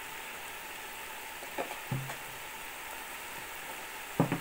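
Minced meat and potatoes sizzling steadily in a pot on the stove, with a few short knocks, the loudest near the end.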